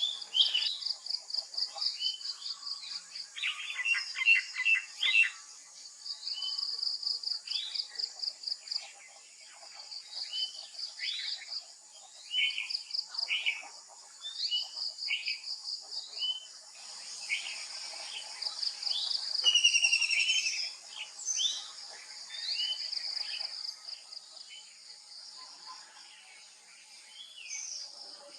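Several wild birds calling at once: many short chirps and whistles, some falling in pitch, over bursts of a high, rapid pulsing trill that repeat every few seconds.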